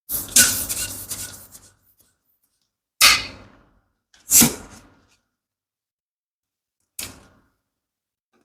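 Rubber balloon handled and rubbed for about two seconds, squeaking and stretching, then three sudden sharp sounds, the first two loudest and the last weaker, each dying away quickly.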